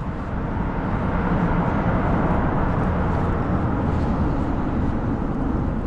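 Steady rumble of road traffic crossing the bridge overhead, echoing off the concrete underside and swelling a little in the middle.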